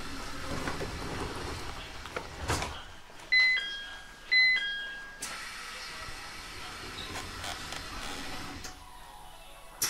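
Two-note electronic door chime of an E721 series train, high then low, sounding twice in quick succession over steady background noise, followed by a sharp click near the end.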